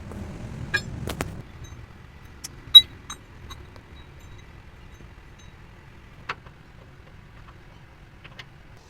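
Scattered sharp metallic clanks and taps over a low rumble that dies away after about a second and a half. The loudest clank rings briefly, about three seconds in.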